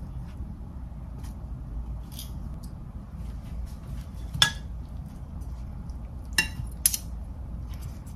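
Kitchen utensils clinking against dishes: a sharp clink with a short ring about four seconds in, then two more a half-second apart near the end, with fainter taps between, over a low steady hum.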